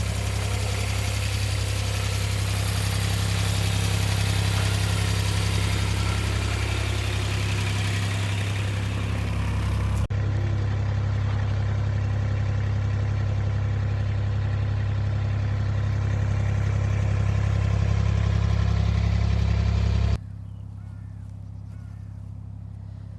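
Farm tractor engine running steadily at low revs. The sound changes abruptly twice, and for the last few seconds the engine is much quieter.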